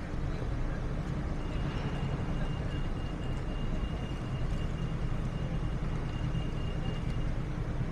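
City street traffic: a steady low rumble of engines, with a thin, faint high-pitched tone that starts about a second and a half in and stops near the end.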